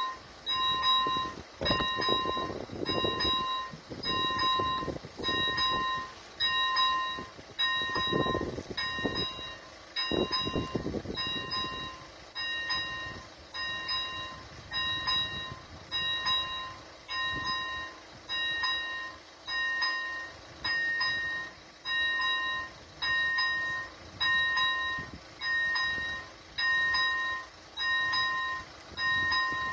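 Level-crossing warning bell of an AŽD crossing signal ringing while the red lights flash, one two-pitched ding a little faster than once a second, steady and even: the crossing is closed for an approaching train.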